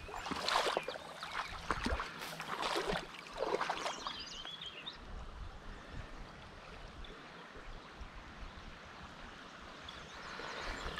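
Creek water running in the shallows, with short splashes and sloshing for the first few seconds as a brown trout is shifted about in a landing net, then only the steady flow.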